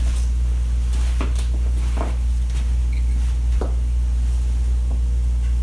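A steady low electrical hum, with a few faint clicks and taps as small plastic parts of a disassembled infrared thermometer are handled and passed between hands.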